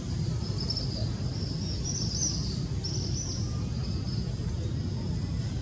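Outdoor ambience: a steady low rumble with a series of short, high-pitched chirping trills, four or five of them, about a second apart, fading out near the end.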